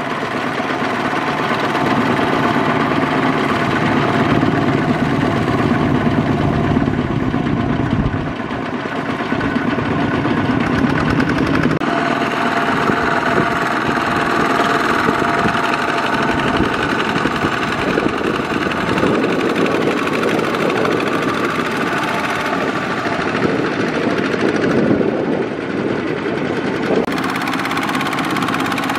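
Two-wheel walking tractor's single-cylinder diesel engine running under load, pulling a loaded trailer through deep paddy mud. Its sound changes abruptly a few times.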